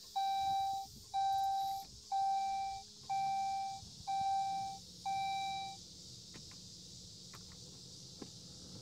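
Saab 9-5 dashboard warning chime: a single-pitched beep repeating about once a second, six times, stopping about six seconds in. A few faint clicks follow.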